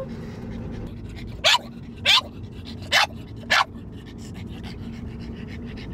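Pug barking in four short, sharp bursts over the steady road noise inside a moving car; the dog is excited.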